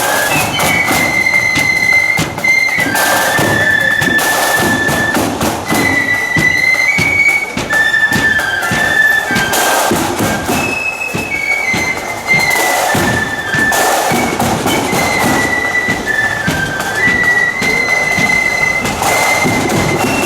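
Marching flute band playing a high, stepping flute melody over regular drum beats.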